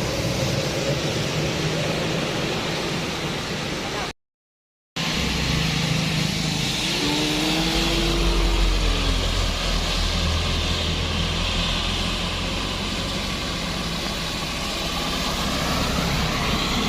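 Road traffic at a bend: the heavy diesel engine of a passing big vehicle rumbling low, loudest around the middle, over steady tyre and road noise. The sound drops out completely for under a second about four seconds in.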